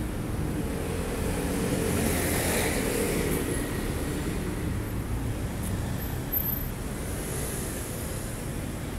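Road traffic on a city street: a steady low rumble of cars and vans, swelling as a vehicle passes about two to three seconds in.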